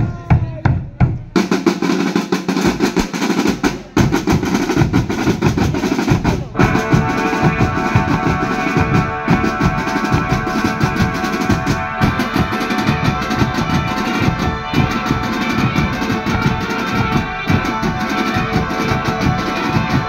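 A marching band's snare and bass drums start abruptly into a loud, fast drum cadence. About six seconds in, held pitched notes join and sound over the drumming.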